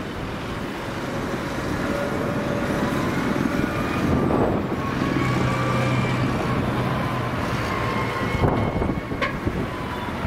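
Road traffic driving over a level crossing. A farm tractor pulling a trailer passes, its diesel engine giving a steady low drone from about four to nine seconds in, with a couple of sharp knocks near the end. Cars pass before and after it.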